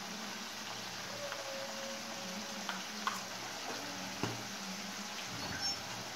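Pieces of rabbit meat simmering in liquid in a frying pan on a gas stove: a steady bubbling hiss with small pops and a few light clicks.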